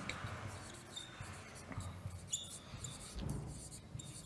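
Marker pen squeaking faintly on a whiteboard as a word is written, in short scattered squeaks and strokes.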